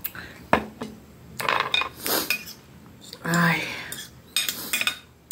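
Knife and fork clinking and scraping against a plate as food is cut, with a sharp knock about half a second in. A short voice sound comes a little past the middle.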